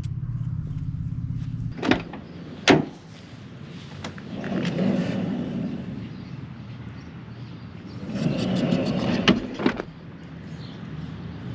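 Mercedes Sprinter van's sliding door rolled along its track twice, each pass a rumbling slide, with sharp clunks from the door and its stopper. A low steady hum stops about two seconds in.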